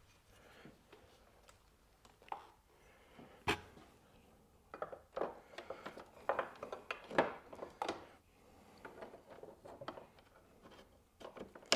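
Metal bracket and rod parts of a motorcycle dash brace clicking and clinking as they are slid together and fitted by hand: scattered light knocks with one sharp click, busiest in the middle.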